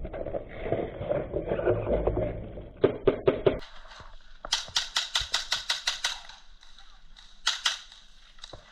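A run of about a dozen quick, sharp airsoft gun shots, roughly eight a second, then two more shots a second or so later. Before them come muffled knocks and rustling.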